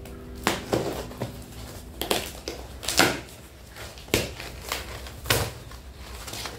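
A knife slitting the packing tape on a cardboard shipping box, heard as a string of about nine short, sharp scrapes and rips over five seconds, as the box is cut open.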